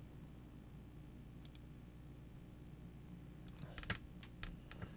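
Light clicks of a computer being operated: a quick pair about a second and a half in, then a rapid cluster of clicks in the last second and a half, over a faint low hum.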